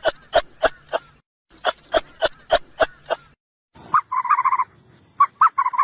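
Animal calls: two bouts of short, evenly spaced calls, about four a second, then after a brief gap a different, quicker run of higher chirping calls from another animal.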